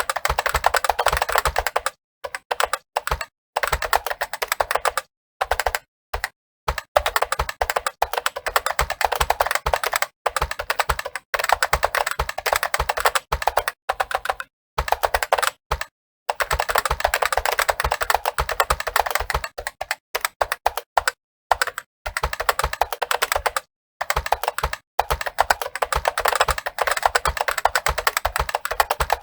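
Fast typing on a computer keyboard: a dense, continuous run of key clicks broken by short pauses every few seconds.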